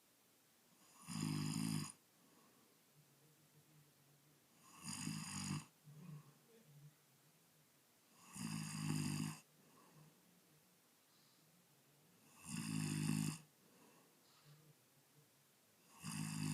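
A man snoring loudly in his sleep: five loud snores, each under a second long, coming at an even pace about every three and a half to four seconds.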